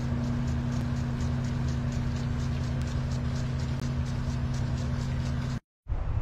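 A motor running at a steady, unchanging hum with a fast, even ticking of about four a second. It cuts off abruptly near the end, giving way to a quieter background.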